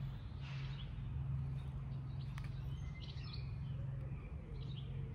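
Birds chirping here and there in the background over a steady low hum, with a faint click about two seconds in.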